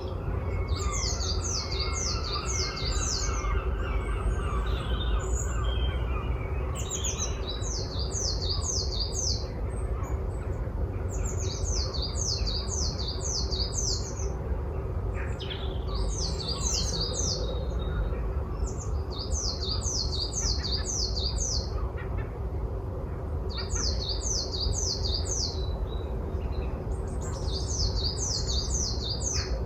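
A small songbird singing, repeating a short phrase of five or six quick, high, falling notes every few seconds, over a steady low rumble.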